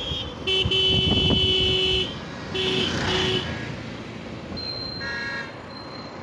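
Vehicle horn honking over the running noise of a moving two-wheeler in traffic: one long toot, then two short toots. A fainter high-pitched tone follows near the end.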